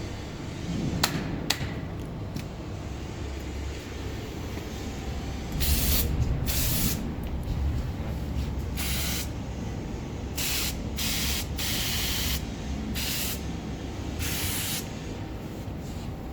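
Short hissing sprays from a bag-on-valve aerosol can of cooking oil, about eight separate bursts in quick succession over a low machine hum, after two sharp clicks near the start.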